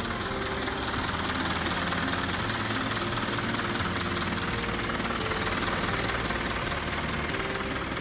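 Isuzu Elf truck's diesel engine idling steadily, a continuous low knocking rumble.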